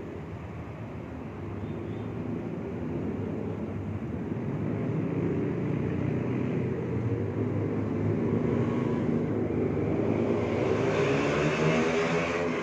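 Engine noise of a passing vehicle, a low rumble that grows steadily louder, with its pitch rising near the end.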